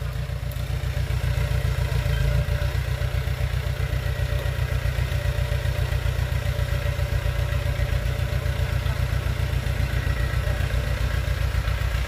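Small crawler bulldozer's diesel engine running steadily under load as it pushes soil, a low, even chug that rises a little over the first two seconds and then holds.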